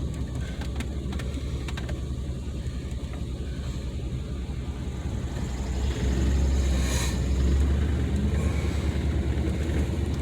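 Car's low engine and road rumble heard from inside the cabin while driving, growing louder about six seconds in.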